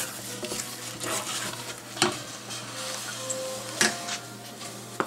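A wooden spoon stirring thick fish-and-vegetable stuffing in a stainless steel pot over heat, with a sizzle from the pot and a few sharp knocks of the spoon against the pot's side.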